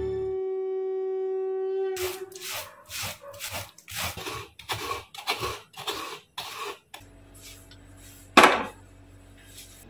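Ripe palmyra (tal) palm fruit being rubbed by hand against a woven bamboo basket to work the pulp off the fibres, with rasping strokes about two a second for some five seconds. It starts after the last held note of music dies away. Near the end, over a low steady hum, a metal pan is set on a gas stove with one loud clank.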